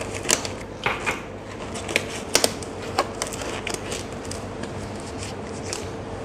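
Disposable gloves crinkling and snapping as they are pulled on and worked over the hands: a string of irregular sharp crackles, loudest and most frequent in the first three seconds, then fainter.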